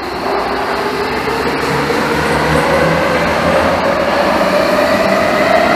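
Munich U-Bahn train pulling out of the station, its traction motor whine rising steadily in pitch as it accelerates, getting louder over the rumble of the cars.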